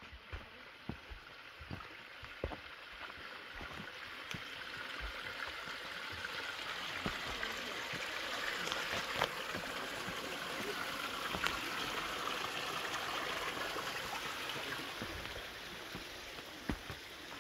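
A small brook running over rocks, louder through the middle and fading near the end, with scattered footsteps on the rocky trail.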